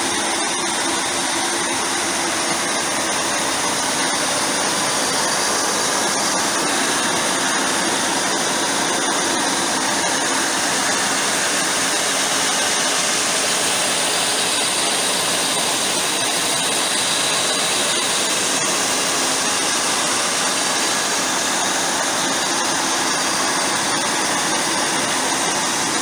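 Two grain augers running at harvest, loading barley from a tipping trailer into the silos: a loud, steady mechanical noise that does not change.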